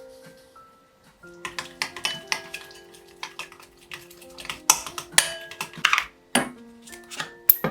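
Kitchen clatter: dishes and utensils clicking and knocking against each other in a quick irregular run, starting about a second and a half in, over soft background music.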